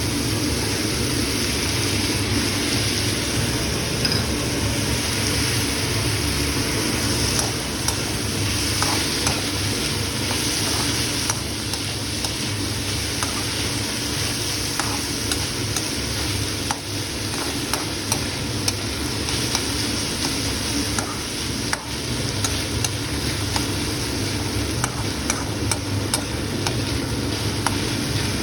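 Food frying and sizzling in a pan while being stirred, with scattered small clicks of a spatula against the pan and a steady low hum underneath.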